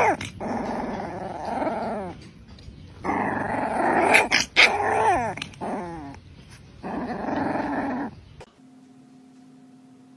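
A dog growling in three long bouts, the middle one with its pitch sliding up and down. It cuts off suddenly about eight and a half seconds in, leaving a faint steady hum.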